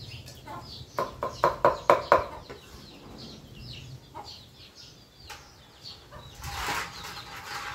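A kitchen knife chopping boiled chicken, bones included, on a round wooden chopping block: a quick run of about six sharp strokes, about five a second, then a few lighter cuts.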